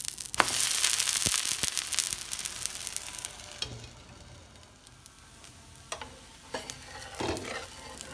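Set dosa sizzling in oil on a hot tawa just after being flipped. The sizzle is loud at first and drops to a quieter hiss after about three and a half seconds. A few sharp clicks of the metal spatula and glass lid are heard.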